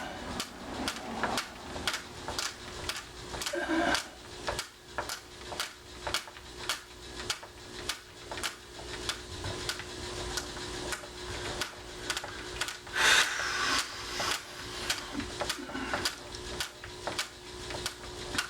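Screwdriver turning screws into a deadbolt lock: a steady run of sharp clicks, about two a second, with a louder scrape about thirteen seconds in.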